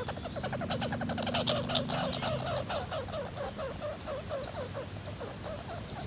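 Red squirrel's territorial rattle: a fast run of short, downward-sliding chattering notes that gradually slows.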